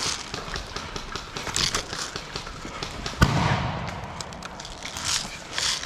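Airsoft guns firing across the field: scattered pops and snaps, with one loud bang about three seconds in.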